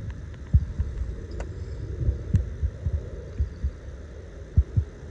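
Wind buffeting the microphone: a low rumble with several dull thumps.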